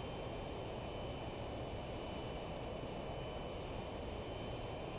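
Piper Cherokee's piston engine running steadily in flight, heard as a low, even drone in the cockpit audio, with a faint steady high whine and a faint chirp repeating a bit more than once a second.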